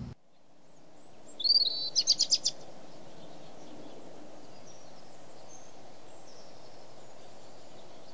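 Black-capped chickadee calling once: a couple of high notes followed by a quick run of about six dee notes, the chick-a-dee call. A steady outdoor hiss follows, with faint distant bird chirps.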